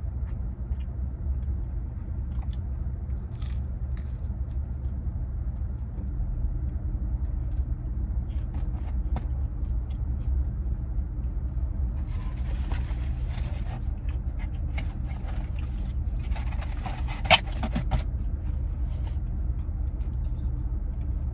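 Steady low rumble throughout, with two stretches of rustling, handling noise about twelve and sixteen seconds in and a single sharp click in the middle of the second stretch.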